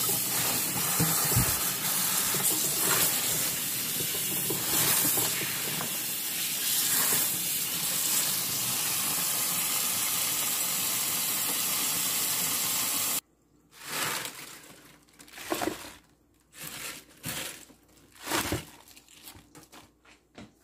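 Tap water running in a steady stream onto fresh spinach leaves in a stainless steel sink; it cuts off abruptly about two-thirds of the way in. After that come a few short rustles and knocks as the wet leaves are handled.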